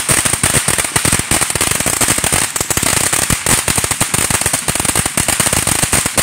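Ground fountain firework spraying sparks: a steady high hiss under dense, rapid crackling pops from the sparks.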